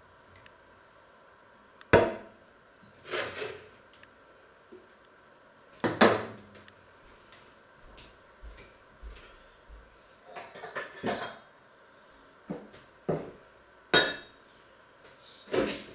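Stainless-steel pots, lids and kitchenware being set down and handled on a glass-ceramic hob and counter, making separate sharp metallic knocks and clatters. The loudest knocks come about 2 seconds in, about 6 seconds in and near the end.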